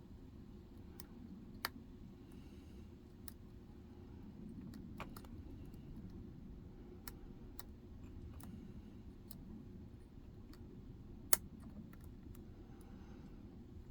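Scattered small metallic clicks of a lock pick working the pins inside a Medeco 6-pin cylinder, irregular and a few seconds apart, with one sharper click about eleven seconds in.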